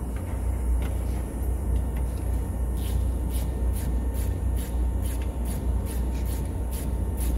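Steady low rumble of a running vehicle or engine. From about three seconds in, a run of evenly spaced sharp clicks comes at about two a second.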